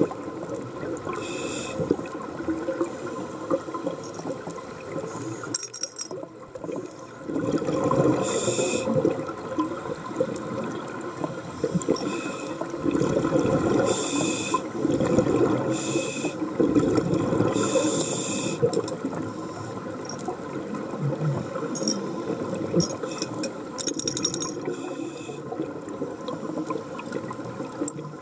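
Scuba breathing underwater through a regulator: short hissing inhalations every few seconds between longer stretches of bubbling exhalation.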